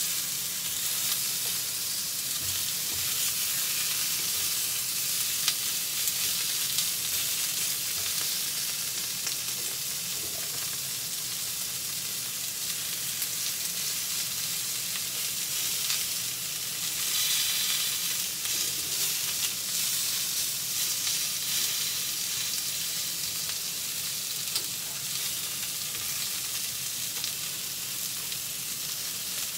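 Pieces of pork cartilage sizzling in a frying pan as they are browned on both sides, with occasional light clicks of chopsticks turning them against the pan.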